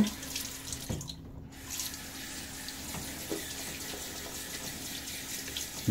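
Bathroom sink tap running steadily, water splashing into the basin.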